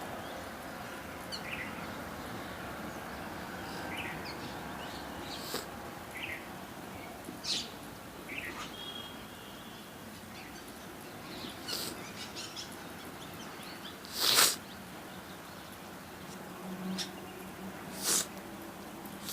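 Parrots calling: short, shrill screeches scattered every few seconds with softer chirps between, the loudest about two-thirds of the way through.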